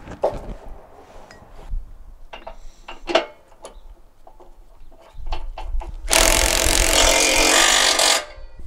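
Scattered clicks and knocks of tools and hardware being handled. Near the end a power tool runs steadily for about two seconds and then stops.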